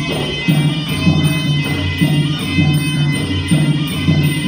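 Traditional Kun Khmer fight music: drums beating a steady rhythm about twice a second under a sustained, reedy wind melody, with jingling percussion.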